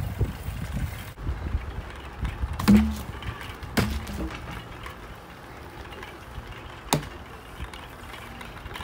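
BMX bike rolling over concrete pavement, with low rumbling noise at first and three sharp knocks, near three, four and seven seconds in.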